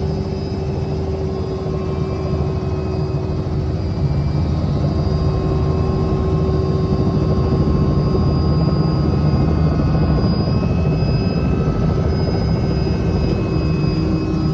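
Helicopter running: a loud, steady low rotor thrum with a thin high whine over it.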